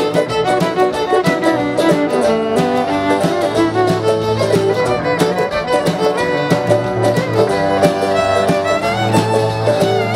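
Bluegrass string band playing live, the fiddle leading over mandolin, acoustic guitar and upright bass, with a steady beat.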